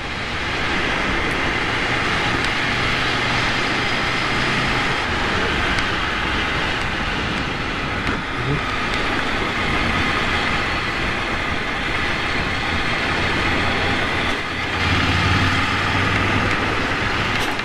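Ducati Monster 797's air-cooled L-twin running at a steady cruising speed, heavily overlaid by wind rushing over the microphone.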